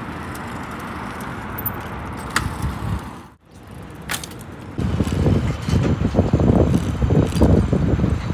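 Steady outdoor hiss of passing road traffic with a couple of sharp clicks, broken by a brief drop about three seconds in; then wind buffets the microphone of a moving rider in a louder, gusty low rumble.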